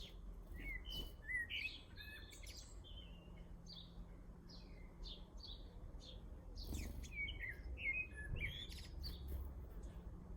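Garden birds chirping and singing, a run of short, varied notes and quick phrases, over a low steady background rumble.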